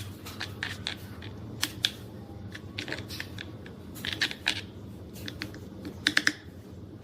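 Scattered light clicks and snips from small hand work, with a quick run of three clicks about six seconds in, over a low steady hum.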